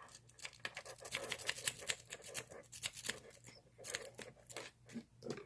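A rake pick scrubbed rapidly in and out of the keyway of a Brinks brass padlock: a fast, irregular run of small metallic clicks and scratches against the pins.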